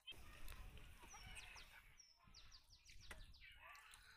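Birds chirping: many short, high calls, some of them quick falling notes, over a faint low rumble.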